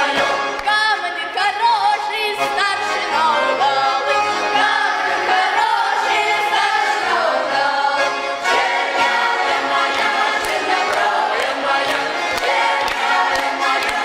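Children's folk choir singing a Russian folk song together, accompanied by a button accordion playing a steady alternating bass.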